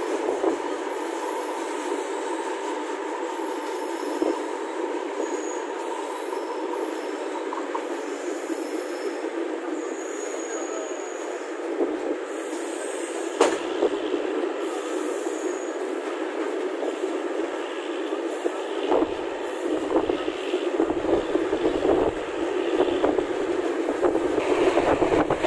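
Indian Railways express train running on the rails with a steady rumble and short, thin, high wheel squeals. From about two-thirds of the way in, rhythmic wheel knocks over rail joints come faster and grow louder.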